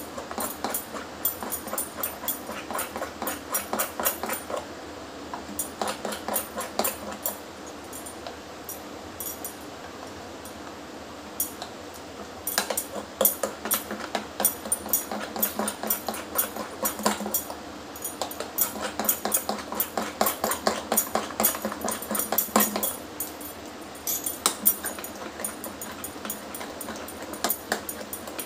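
A spoon beating thick ground moong dal batter in a glass bowl, whipping it to lighten it: quick rhythmic strokes in spells, broken by short pauses.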